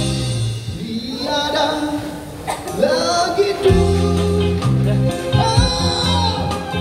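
Live band with electric guitars and a male and a female singer singing a duet. The low end drops back for a few seconds and the full band comes back in about three and a half seconds in.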